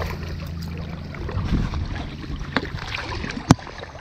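Small pike splashing at the water's surface as it is played in toward the landing net, over a steady low rumble. A single sharp click comes near the end.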